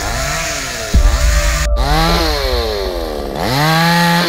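Two-stroke petrol chainsaw engine revving up and down several times. Near the end it climbs to high revs and holds there as the chain cuts into a branch.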